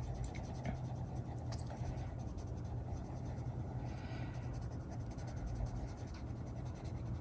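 Freshly sharpened Mondo Llama coloured pencil scratching back and forth on a colouring-book page, a soft continuous scratching, over a low steady hum.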